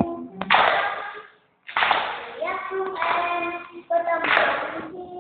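Children singing a birthday song together, in held phrases with short breaks, with hand clapping along.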